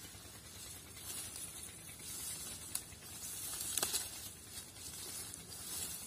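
Dry reeds and grass rustling and crackling in irregular surges as someone pushes through them, with a couple of sharp snaps in the middle.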